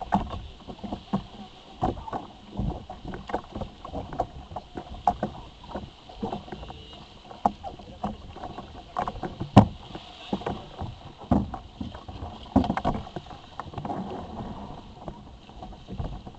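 Water splashing and slapping against the hull of an Ocean Kayak Malibu Two XL under way, in a run of irregular knocks and splashes, with one sharper knock about halfway through.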